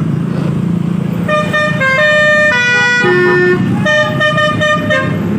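Bus telolet horn, a set of multi-tone air horns, playing a tune of short stepped notes that starts about a second in, over the low running of the bus engine.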